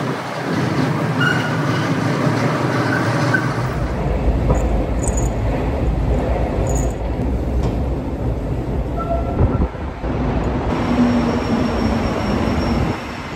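Montreal metro train, a rubber-tyred subway train, running in the station with a loud, continuous rumble. A steady hum joins it near the end.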